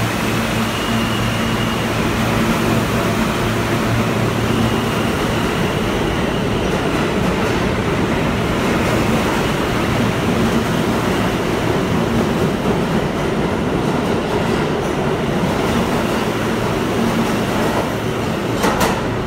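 Alstom R160A subway train pulling out and running off into the tunnel: a steady loud rumble of wheels on rail with a faint high whine, and a couple of sharp clicks near the end as the last car goes by.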